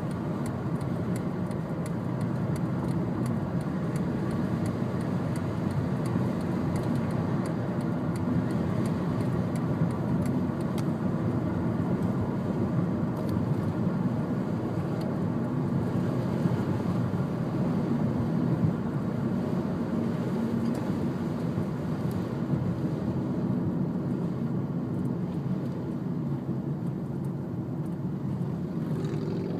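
Steady rumble of a road vehicle running, with no change in level.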